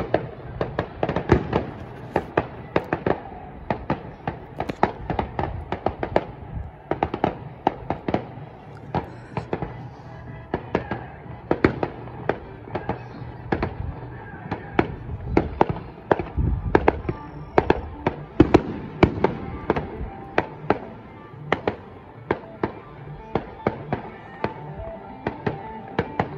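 Fireworks going off in a long, rapid barrage: a dense, uneven run of sharp bangs and pops, several a second, without a break.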